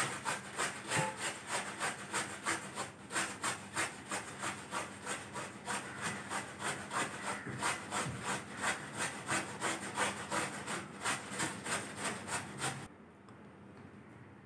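Bottle gourd (dudhi) being grated with its skin on against a handheld steel grater: even, rhythmic rasping strokes, about three a second, that stop near the end.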